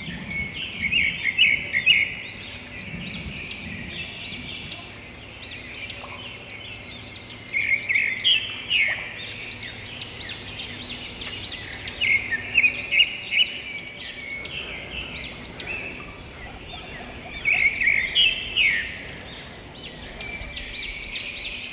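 Songbirds chirping in clusters of rapid, high notes every few seconds, over a steady outdoor hiss.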